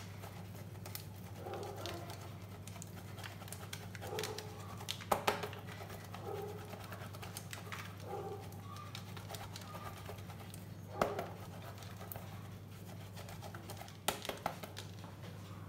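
Cheese grated by hand on a flat stainless-steel grater, a soft, repeated rasp, with a few sharp knocks. A low hum and a few short pitched calls sound faintly behind it.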